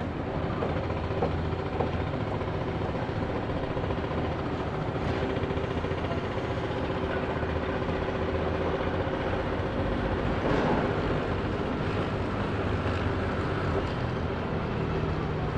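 Construction site ambience: a machine's engine running steadily, with a few short knocks about a second in and again a little past the middle.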